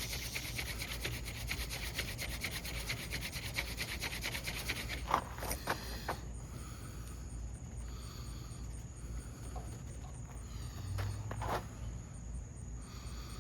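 A mullein hand-drill spindle is spun back and forth with thumb loops on a pine hearth board: a fast, rhythmic wooden rubbing that stops about six seconds in, as the drilling builds an ember. Insects trill steadily behind it.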